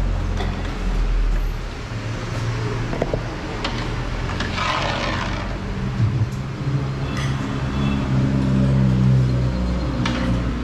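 Street traffic: a motor vehicle's engine running close by, its note rising and falling, with a rush of passing traffic about five seconds in.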